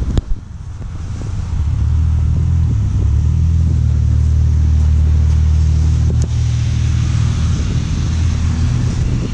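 A sharp click, then a snowmobile's Rotax 850 E-TEC two-stroke twin idling as a steady low drone that settles in about a second and a half in.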